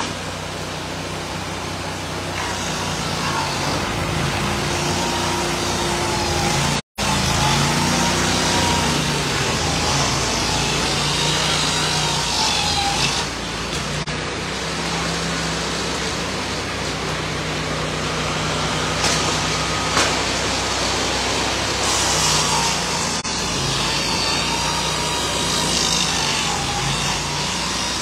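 Sawmill machinery, including a Wood-Mizer twin-blade edger, running steadily as boards are fed through: a constant engine drone with a wavering saw whine over it.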